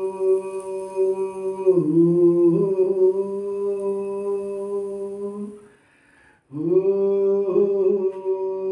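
Vocal toning for healing: a single voice humming a long, steady note. It dips in pitch briefly about two seconds in, breaks off for a breath near six seconds, and slides back up into the same note.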